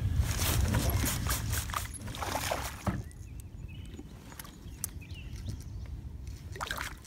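Wind rumbling on the microphone under clicks and knocks of handling for about the first three seconds, then quieter, with faint small sloshes and ticks of water by the side of a small boat.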